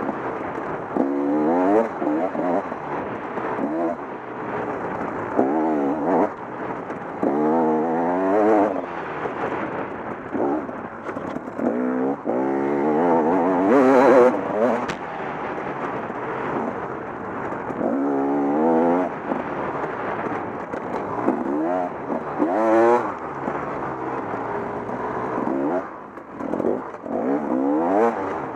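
Dirt bike engine revving up in repeated rising sweeps and dropping back as the throttle is rolled on and off, loudest about halfway through and again near the end.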